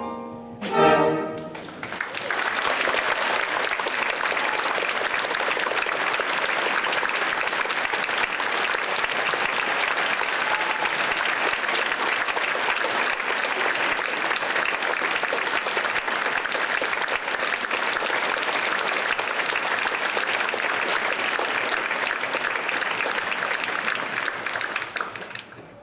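An orchestra plays a closing chord about a second in, then a theatre audience applauds steadily, fading out near the end.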